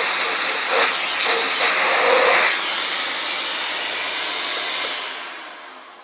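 Agaro Twister 2200-watt dry canister vacuum cleaner running, its motor humming under a loud rush of air through the hose; the airflow surges unevenly for the first couple of seconds, then runs steadily. Near the end the hum stops and the noise dies away as the motor winds down.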